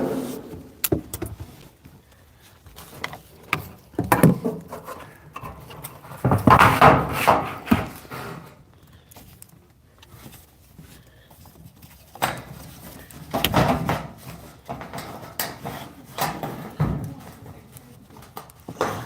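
Intermittent knocks, clicks and rustling from hands-on work with tools and materials, with a few louder clattering stretches.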